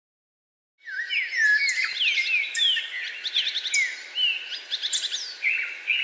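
Songbirds chirping and whistling, starting about a second in: many quick downward-sliding whistles and short rapid trills, high-pitched and overlapping, over a faint hiss.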